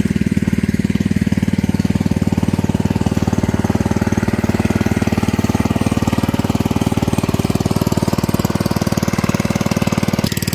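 A steady, low, rapidly pulsing drone like a small engine running, unchanged throughout.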